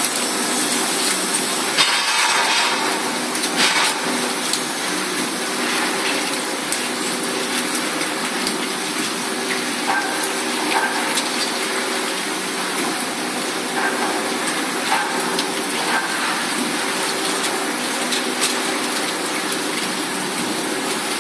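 Two-spindle CNC drilling machine running with both drills cutting into metal plate: a steady hum with several held tones under a constant hiss, and a few faint brief clicks.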